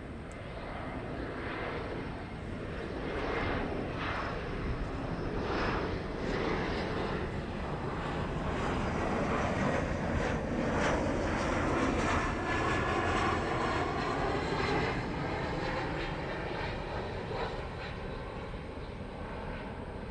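Boeing 767-300ER jet airliner climbing out after takeoff, its twin turbofan engines at climb power giving a continuous crackling roar. The roar swells to its loudest about halfway through, takes on a rippling, phasing quality, then eases off slightly as the aircraft pulls away.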